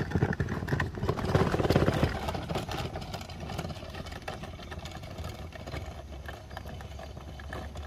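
Hard wheels of a rolling power-box case rumbling and rattling over rough asphalt, louder for the first two seconds and then quieter.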